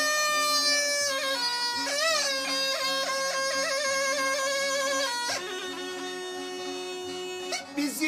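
Sipsi, the short Teke single-reed cane pipe, playing a reedy folk melody over a steady low drone tone. A long held note gives way to quick trilled ornaments, and the melody breaks off about five seconds in before a new note starts near the end.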